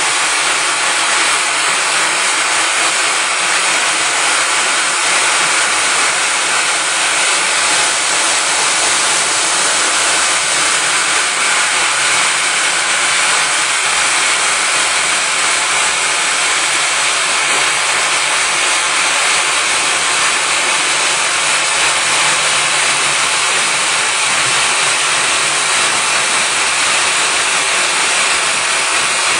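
Friction stir welding machine running steadily as its spinning tool traverses an aluminium plate seam: an even, unbroken hiss with no distinct tones or knocks.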